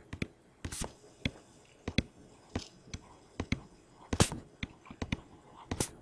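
Light irregular taps and clicks, several a second, with a few short scratchy strokes, the loudest about four seconds in: a pen or stylus writing numbers on a tablet surface.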